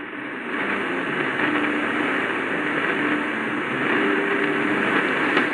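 Shortwave static hissing steadily from the RRS RS-661BT portable radio's speaker as it is tuned across the band, with faint low whistling tones under the noise.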